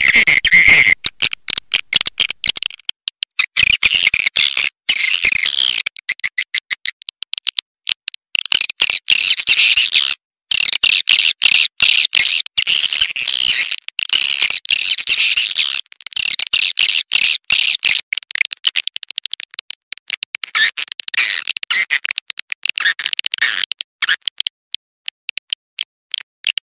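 Swiftlet call recording used as a lure sound to attract swiftlets: a dense, rapid twittering of high chirps. It is chopped by many short gaps, with a brief break a little after ten seconds.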